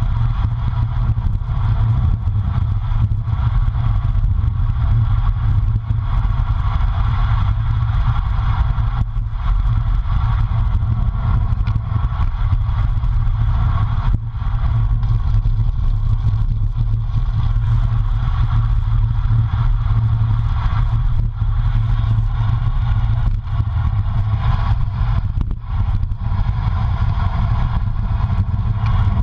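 Steady wind rumble on a handlebar-mounted camera's microphone as a road bike rolls along, with tyre noise on asphalt and a few brief knocks from bumps in the road.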